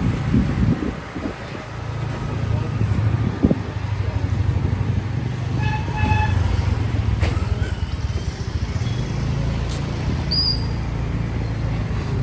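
Motor vehicle engine running steadily under road and wind noise, with two short horn toots about six seconds in.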